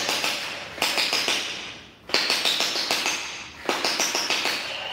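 Electric P90-style gel blaster firing in full-auto: four bursts of a second or so each, separated by short gaps, each a fast rattle of shots. The gel balls strike the plastic drop targets and knock them down.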